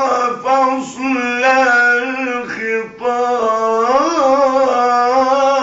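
A man's voice reciting the Quran in melodic tajweed style, drawing out syllables into long held notes. About four seconds in he turns the pitch up and back down in an ornament.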